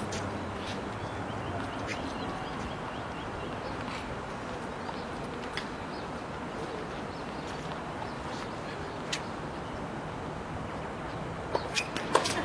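Steady outdoor background noise with faint bird chirps. Near the end, a few sharp taps, typical of a tennis ball being bounced on the court.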